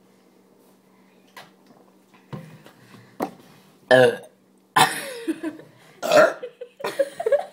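Loud burps brought up after gulping fizzy Pepsi. The first big one comes about four seconds in, and more long, loud burps follow over the next few seconds.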